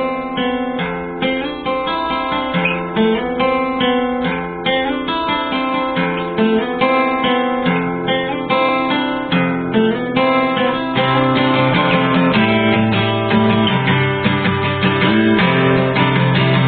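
Acoustic guitar music, strummed and picked chords with changing notes. It grows fuller and steadier in level, with stronger low notes, from about eleven seconds in.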